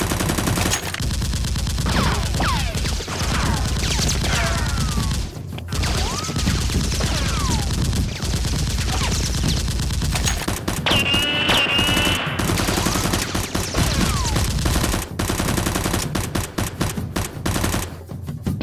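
Continuous rapid automatic gunfire sound effects dubbed over Nerf blaster fire, with several short falling whistles mixed in.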